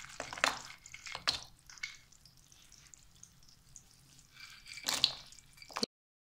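Dry fruits (coconut slices, cashews and other nuts) dropped into bubbling ghee in a frying pan, sizzling steadily with sharp crackles and spatters as each handful goes in, the loudest about half a second, one and a quarter seconds and five seconds in.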